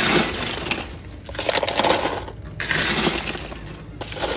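A plastic scoop crunches into ice in a cooler, and ice cubes clatter into a plastic cup, in a few scooping bursts.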